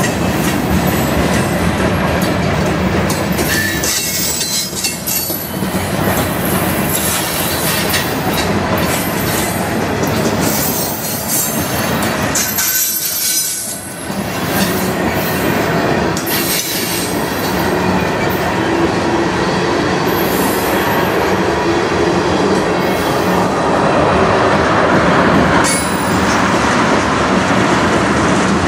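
Freight train cars rolling past at close range: a steady rumble and clatter of steel wheels on the rails, with high-pitched wheel squeal coming and going. The sound eases briefly about halfway through.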